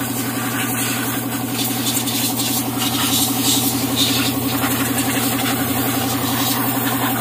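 An engine idling steadily: an even low hum with a fast pulsing beat, under a constant hiss.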